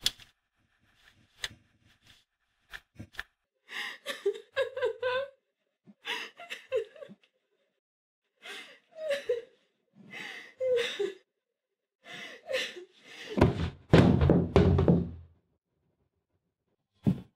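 A young woman crying in short, broken sobs, after a few light clicks. A heavier stretch of low thumps comes near the end of the crying, then one sharp knock.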